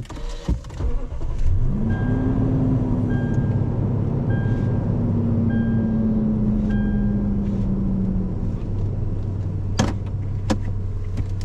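Lexus GX460's 4.6-litre V8 starting about a second and a half in, then idling high and steady, its pitch easing down over several seconds as it settles to a lower idle. A faint chime beeps about once a second, and a few sharp clicks come near the end.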